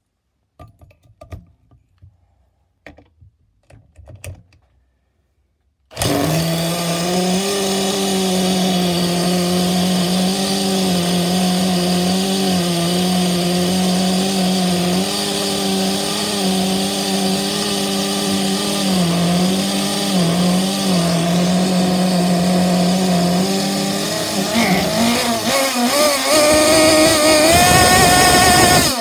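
A few faint clicks of handling, then a cordless drill starts spinning an HPI Bullet 3.0 nitro engine over, a loud steady whine with small dips. About 24 seconds in the engine catches and runs unevenly, its pitch wavering and rising near the end as the throttle is worked.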